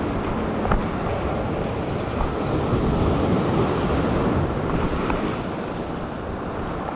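Surf washing and breaking over a sandstone rock ledge, with wind buffeting the microphone. A single light knock sounds under a second in.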